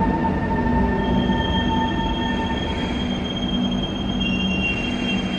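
SMRT C151 metro train rolling slowly into the platform as it brakes, heard through the platform screen doors. There is a low rumble under several steady high-pitched squealing tones: new squeals start about a second in and again near the end, while a lower one fades out midway.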